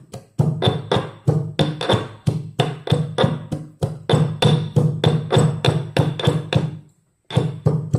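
Background music with a fast, steady percussive beat, about five strokes a second, cutting out briefly about seven seconds in.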